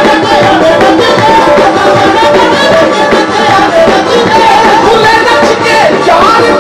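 Qawwali music played live and loud: a wavering harmonium and vocal melody over tabla drumming.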